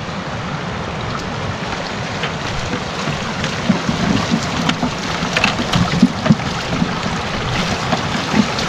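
Rushing mountain stream, a steady even rush of water, with short splashes and knocks from about three and a half seconds in as things are handled in the water at its edge.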